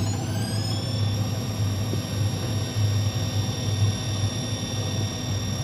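Electric motor on an ACS900 drive giving off a high electronic whine of several tones that climbs in pitch over the first second, then holds steady over a low hum. The whine is the unusual electronic noise this motor makes around a change of direction, one the owners' other machine does not make.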